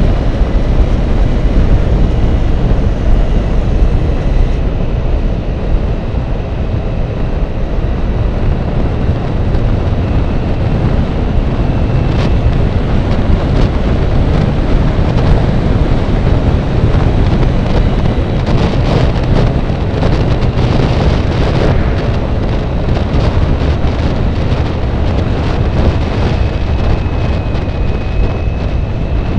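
Wind buffeting the microphone of a camera moving along a road: a loud, steady low rumble, with scattered light clicks and rattles, more of them about two-thirds of the way through.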